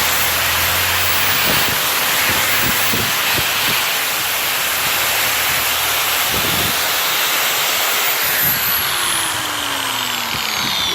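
A handheld power buffer running against a rusty wrought-iron anvil face, a loud steady grinding hiss with the motor's whine underneath. A few seconds before the end the motor note falls steadily as the tool spins down.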